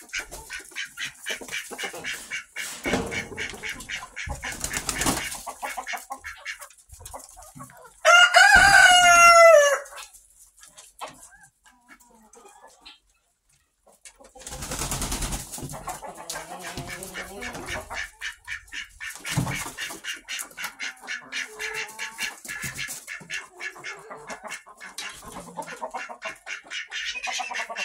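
Barn chickens clucking in a quick, steady rhythm, with a rooster crowing once about eight seconds in, the loudest sound; the clucking drops away for a few seconds in the middle.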